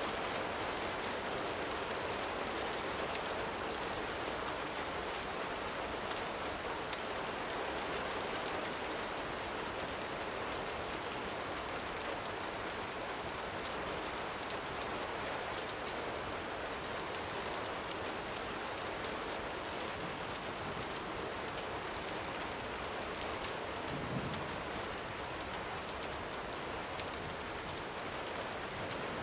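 Gentle rain falling steadily, with the fine crackle of a campfire ticking through it.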